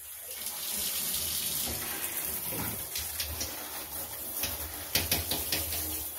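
Hand-held shower head spraying water over a potted peace lily's leaves in a bathtub: a steady hiss of water that builds over the first second, with occasional sharper splashes on the leaves and tub.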